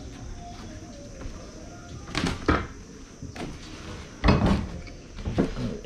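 Several irregular knocks and thumps, the loudest about four seconds in, over a low background.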